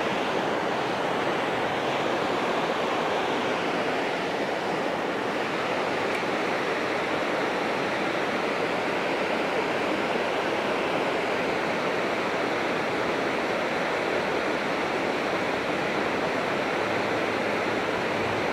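Steady rush of water pouring over a dam spillway and tumbling through rocky rapids below it.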